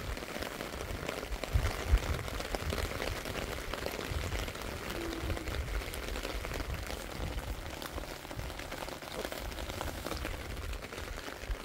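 Steady patter of light rain, with irregular low rumbles of wind on the microphone.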